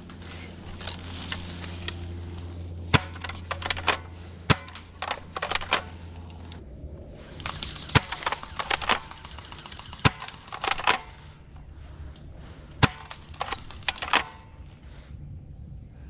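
Airsoft gunfire: scattered sharp cracks, some single and some in quick runs of two to four. A low steady hum runs underneath for about the first six and a half seconds, then stops.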